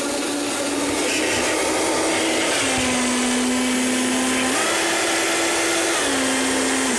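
Countertop blender motor running steadily while oil is poured in to make a mayonnaise-style emulsion, its pitch stepping down, back up, then down again as the load on the blades changes.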